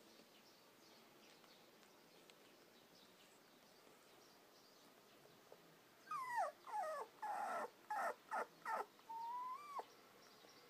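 Toy poodle puppy, about seven weeks old, whimpering: about six seconds in, a quick run of short high whines, most sliding down in pitch, ending in one longer whine that drops off sharply.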